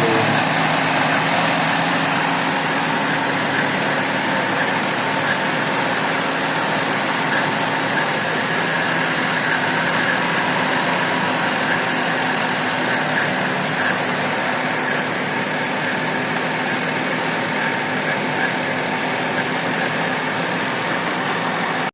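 Suzuki Celerio's three-cylinder engine idling steadily, with no breaks in the sound.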